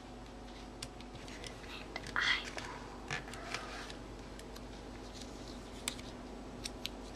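Stickers being peeled from a sticker sheet and pressed onto paper: scattered light clicks and taps of fingers on paper, with a brief rasp about two seconds in.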